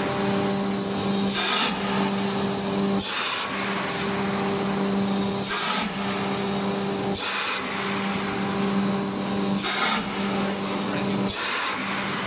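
Automatic paper egg tray (pulp-moulding) machine running with a steady hum and a low tone, broken six times by short hissing blasts of air from the mould heads. The blasts come every couple of seconds as the moulds cycle, and the hum dips under each one.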